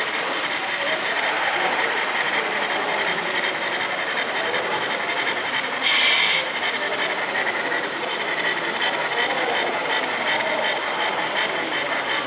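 Model steam locomotive's onboard sound running: steady steam chuffing and hiss over the background noise of a busy hall, with a short, louder burst of steam hiss about six seconds in.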